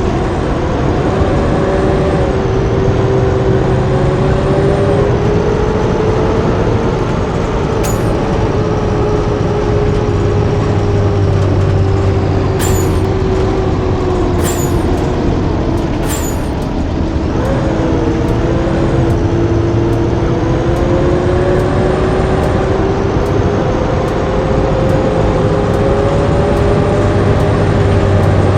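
Blue Bird D3FE bus under way, its engine running steadily with the pitch slowly sinking, dropping briefly about two-thirds of the way through as at a gear change, then climbing again. A few sharp clicks sound in the middle stretch.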